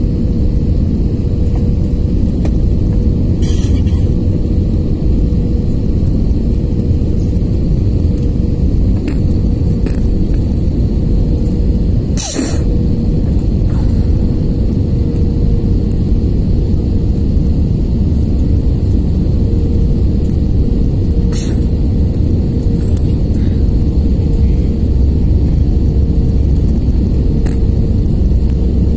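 Airliner cabin noise on final approach, heard from a window seat over the wing: a steady low rumble of the jet engines and rushing air with a steady hum, broken by a few brief clicks.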